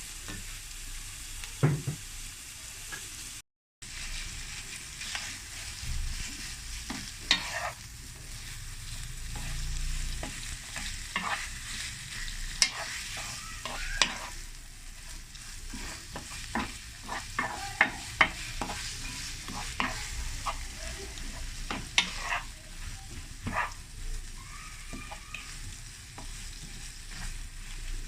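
Minced-meat kofta with onion, peppers and chopped herbs sizzling in oil in a pan while being stirred, with frequent sharp taps and scrapes of the utensil against the pan. The sound briefly cuts out a few seconds in.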